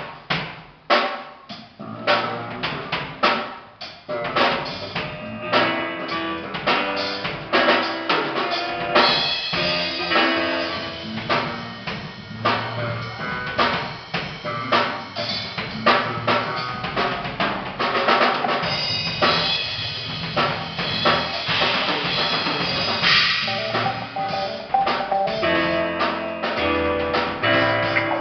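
Live drum kit at a band's sound check: a few separate hits on the kit at first, then a steady groove with bass drum and snare from about four seconds in, with pitched instruments playing along.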